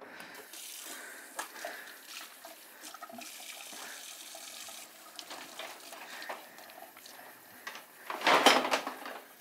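Water running from a kitchen tap into a sink while dishes and cutlery are handled, with scattered clinks. A loud, sudden rush of noise comes about eight seconds in.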